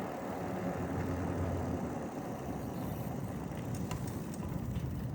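Steady low rumble of a trike's knobby tyres rolling on pavement, with a few light clicks about four seconds in.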